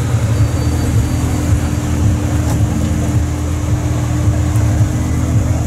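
Sports car engine running steadily at low revs with a deep rumble, without revving.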